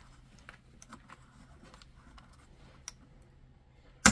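Light plastic clicks and taps from a plastic pry tool working under the gauge needles of a car instrument cluster, a few scattered ones and then one sharp click near the end.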